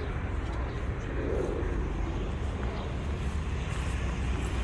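Steady low outdoor rumble, with a faint voice about a second in.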